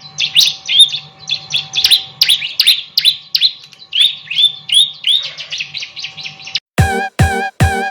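Bar-winged prinia (ciblek) singing a rapid run of sharp, repeated chirps, about three a second. Near the end the song stops and a few short musical stabs come in.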